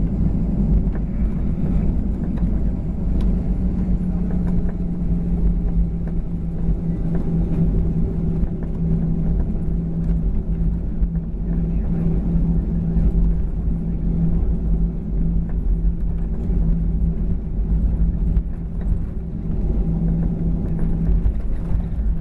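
Inside the cabin of a Boeing 737-900ER on the ground: the CFM56-7B jet engines run at a steady low power, a constant hum over a deep rumble, with no spool-up to take-off thrust.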